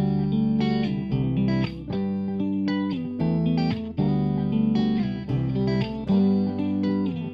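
Background music led by guitar: plucked notes and chords changing about every half second in a steady rhythm.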